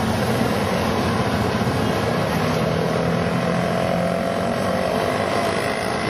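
Street traffic: motorcycle and auto-rickshaw engines passing close by, over a steady traffic din, with one engine's hum rising and fading in the middle.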